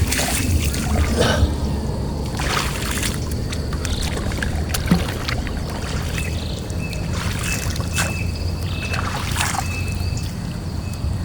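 Water splashing and dripping in irregular bursts as a gill net is hauled into a small boat, over a steady low rumble.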